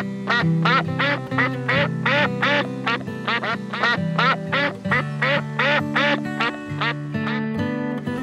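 Ducks calling in a rapid series of short quacks, about three a second, over background music with held low notes.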